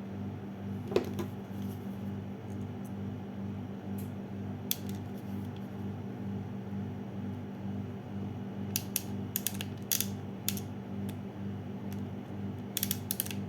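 SN-03BM ratcheting hand crimping tool clicking as it crimps terminals onto wires: one sharp click about a second in, a few scattered clicks, then two runs of quick clicks in the last few seconds. A steady low hum runs underneath.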